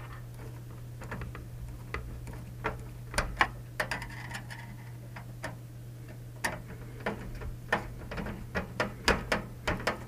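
Hand screwdriver turning case-fan screws into the fan frame through the PC case: irregular small clicks and ticks of the bit and screw, coming thicker near the end, over a steady low hum.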